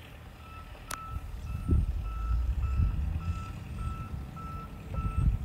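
A vehicle's reversing alarm beeping steadily about twice a second, starting about half a second in, over low rumbling with a sharp click about a second in.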